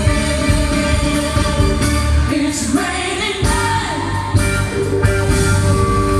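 Upbeat disco song with a singing voice over a steady beat, played loud for a dance routine; the bass drops out for about a second midway, then comes back in.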